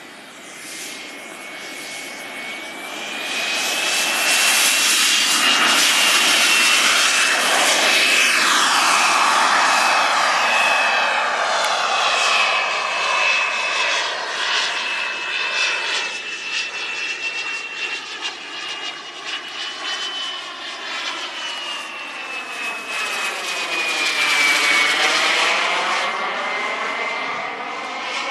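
Radio-controlled model jet's engine running at high power through takeoff and flight: a high whine over a rushing hiss that builds over the first few seconds, then holds loud. It fades and swells again with the pitch sweeping as the jet passes by, about 24 seconds in.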